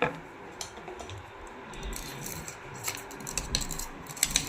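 Scattered light clicks and rattles of small metal parts being handled as a replacement drive chain and gear are fitted into a zigzag sewing machine, with a sharper click at the start and a quick run of clicks near the end.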